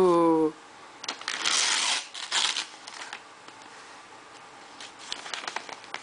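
Tissue paper and wrapping paper rustling and crinkling as a baby's hands pull at a Christmas present: two longer bursts of rustling in the first few seconds, then scattered light crackles near the end.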